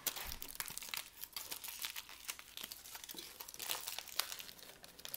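Aluminium foil wrapped around a soup cup crinkling and crackling as it is handled, in an irregular run of small crackles.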